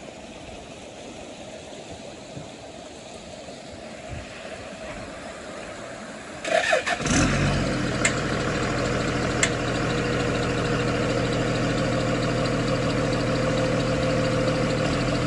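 Feed truck's engine being started: a brief crank about six and a half seconds in, then it catches and settles into a steady idle.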